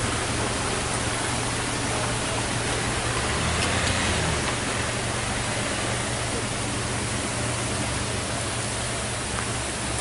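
Steady rushing roar of a waterfall cascading down a steep rock face.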